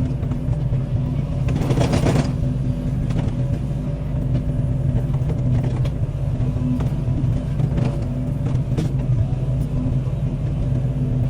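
Excavator's diesel engine running steadily under load, a continuous low drone, with a brief louder rush of noise about two seconds in and a few sharp cracks later.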